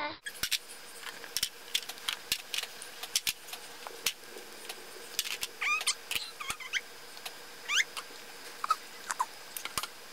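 Hard plastic toy animal figures tapping and clicking irregularly on a plastic tray, with a few short high squeals from a baby about six to eight seconds in.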